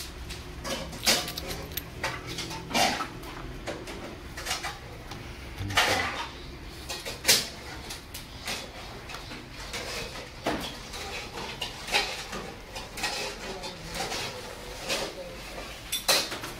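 Irregular knocks and clatter, a sharp one every second or two, over a steady low hum, with faint voices in the background.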